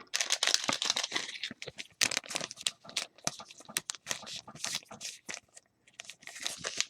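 Trading cards and their plastic wrapping being handled: a busy run of crinkling, rustling and quick clicks, with a short pause near the end.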